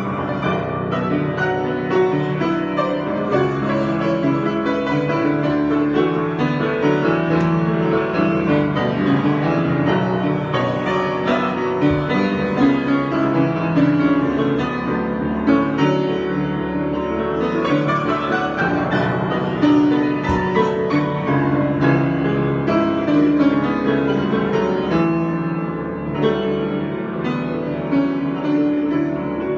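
Piano improvisation, many notes played continuously with chords and running lines.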